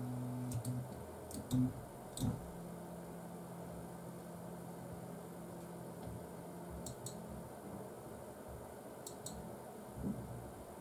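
A 3D printer's stepper motors on TMC2208 drivers run quietly, giving a faint low hum that comes and goes. A louder hum cuts off just after the start. A few sharp clicks are scattered through, most near the start.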